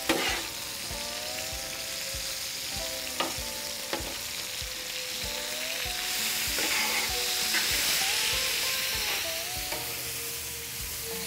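Mallard duck pieces and bacon sizzling in grease on a hot flat-top griddle, with a metal spatula scraping and tapping on the cooktop as the meat is stirred, a clack every second or so.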